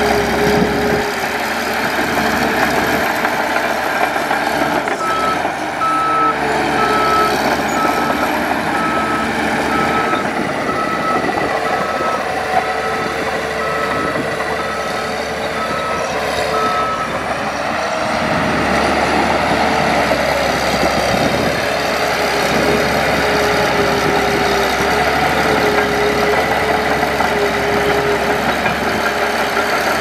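Heavy earthmoving machinery running with loud, continuous diesel engine noise, and a reversing alarm beeping about once a second from about five seconds in until about seventeen seconds in.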